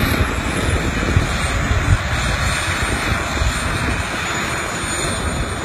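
Small jet turbines of a hoverboard running steadily: a loud rushing jet noise with a thin high whine on top. The noise eases slightly toward the end as the board settles onto the platform.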